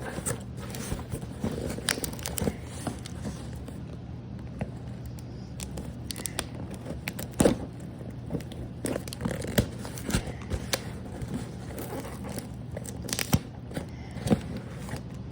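Shipping package and its packing material being handled and unpacked by hand: irregular rustling of paper and plastic with scattered sharp clicks and knocks.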